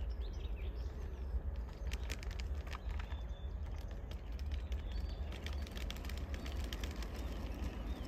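Garden-scale model train of log bogies rolling along outdoor track, the wheels giving light, irregular clicks over a steady low rumble. A bird chirps a few times.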